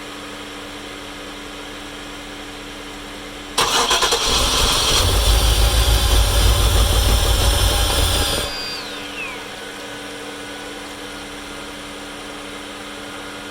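1996 Impala SS's LT1 V8 being cranked by the starter for about five seconds without catching, then released; a crank-no-start condition where fuel reaches the engine but there is no fuel pressure at the rail.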